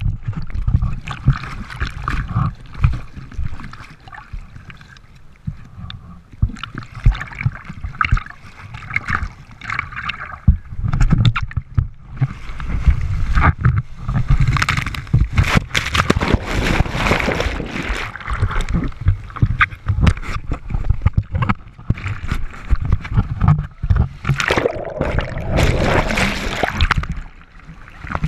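Surf and splashing water picked up by a board-mounted action camera at water level: breaking waves and churning whitewater, with many low thumps and buffeting as water slaps the camera. The loudest whitewater rush comes about halfway through, with another near the end.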